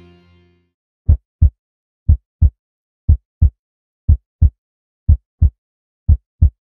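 Heartbeat sound effect: a low double thump, lub-dub, repeating about once a second. The tail of background music fades out just before the beats begin.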